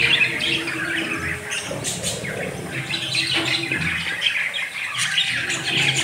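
Budgerigars chattering: a dense, continuous run of quick chirps and squawks.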